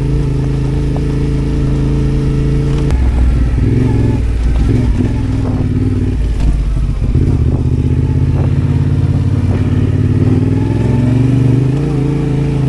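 Adventure motorcycle's parallel-twin engine running under way on a dirt road. Its note shifts several times as the throttle is opened and closed.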